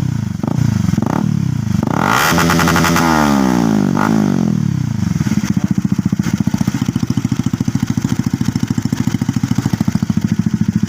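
Honda CBR150's single-cylinder four-stroke engine revved through its exhaust: a few quick throttle blips, then a rev to high rpm about two seconds in that falls back by about four and a half seconds. It then settles into a steady, evenly pulsing idle.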